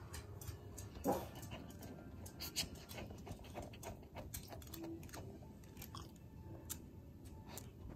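A small dog walking on a tile floor, its claws making faint scattered ticks on the tiles, with a slightly louder click about a second in.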